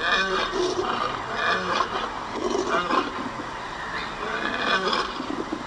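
Jungle animal sound effects: a run of wild animal calls, one after another about a second apart.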